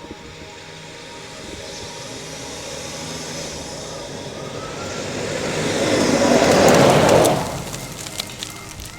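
A rushing noise that builds steadily for about seven seconds, peaks, then drops away quickly, like something passing close by, with a few clicks after it.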